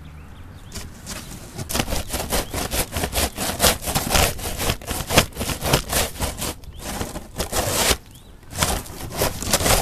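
Metal snow shovel blade crunching and scraping into crusty, granular ice and snow in quick, rough repeated strokes, with a short lull near the end.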